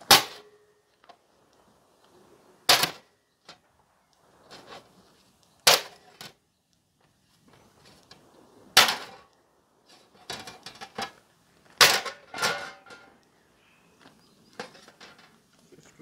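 Cold Steel SR1 Lite folding knife stabbed point-first into a thin steel plate: six sharp metal impacts roughly every three seconds, the last two close together. The first rings briefly, and the plate clatters lightly between the later strikes.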